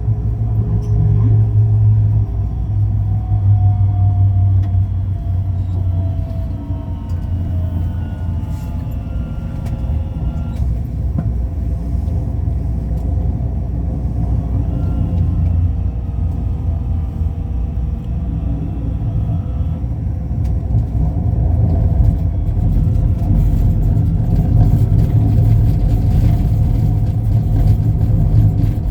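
Ui-Sinseol light rail train running between stations: a steady low rumble with faint whining tones that slowly slide down and up in pitch.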